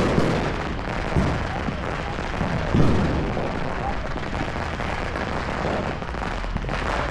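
Many fireworks going off at once: a constant crackle and popping, with three heavier booms in the first three seconds.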